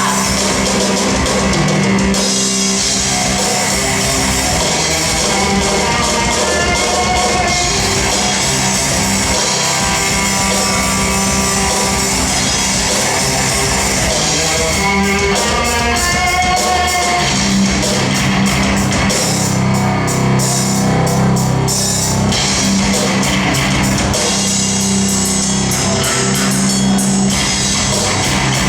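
Live rock band playing an instrumental passage: electric guitar over drum kit and bass.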